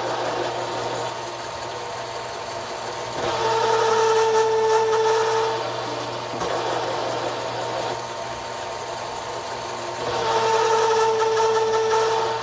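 Bridgeport milling machine running with a Procunier tapping head, tapping threaded holes in aluminum plate. A steady machine hum rises twice to a louder whine for a couple of seconds, about three seconds in and again near the end, as the tapping head cycles in a hole.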